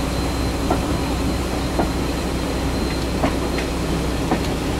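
Steam-hauled passenger train in motion, heard from a carriage window: a steady running rumble and rush, with a few sharp clicks from the wheels crossing rail joints.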